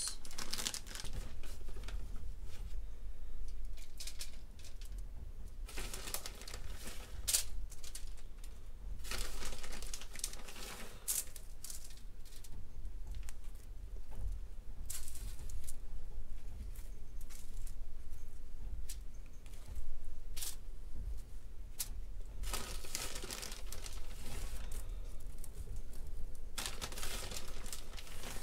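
Plastic bag of shredded mozzarella crinkling in repeated bouts as it is opened, squeezed and shaken out, with quieter gaps in between.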